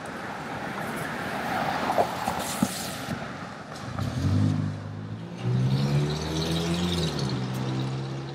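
Street traffic: a car passes with a swelling rush of tyre noise, then an engine hums steadily, rising in pitch and dropping back near the end.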